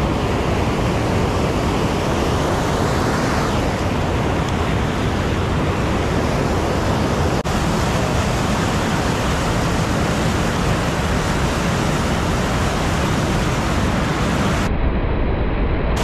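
Loud, steady rush of whitewater pouring over a low river dam and churning in the pool below it.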